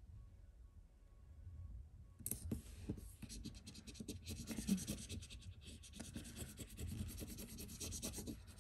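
Tweezer tips scratching and rubbing rapidly over a paper sticker on a planner page. The scratching starts about two seconds in and carries on as a dense run of quick strokes.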